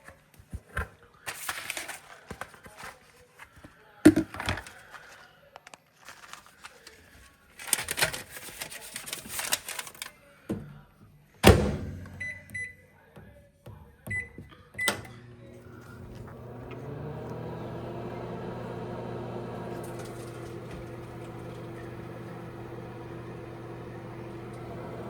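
Microwave oven being loaded and started: rustling and knocks, the door shutting with a loud thump, a few short keypad beeps, then the oven's steady hum from about fifteen seconds in.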